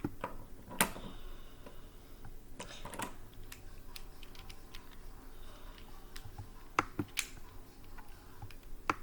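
A handful of faint, sharp clicks and light taps: a few around three seconds in and a quick cluster about seven seconds in, with a low room hum underneath.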